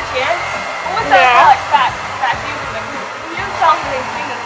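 Handheld hair dryer running with a steady blowing rush. A high voice rises loudly over it about a second in, and again shortly before the end.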